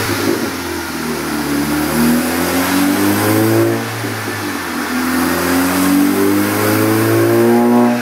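Volkswagen MK6 GTI's tuned turbocharged 2.0-litre four-cylinder, with APR Stage II software and a custom 3-inch stainless catless exhaust, revving up on a chassis dyno. The pitch climbs steadily, drops back about four seconds in, then climbs again until it falls away near the end.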